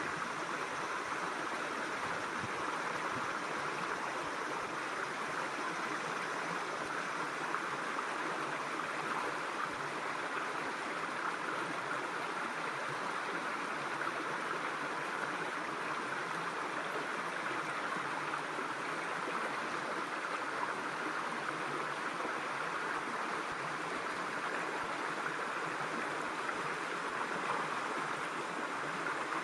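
Steady, unbroken rush of a mountain stream's water flowing over rocks.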